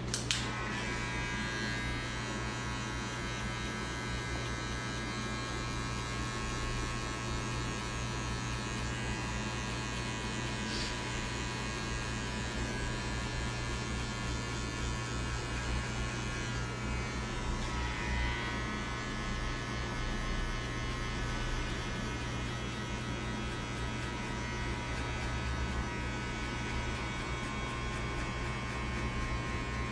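Electric hair clippers running steadily with a constant buzz while cutting hair, with a short click at the very start.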